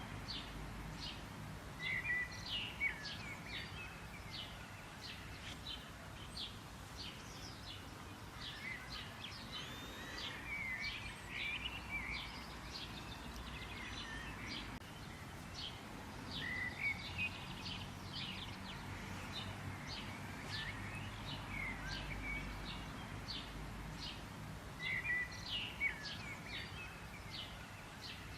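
Several songbirds chirping and calling in quick, overlapping phrases of short high notes and sweeping whistles, over a low steady background rumble.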